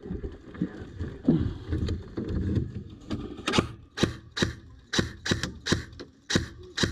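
Airsoft gun firing single shots, a sharp crack about twice a second, starting about three seconds in. Before the shots, a low murmur of distant voices.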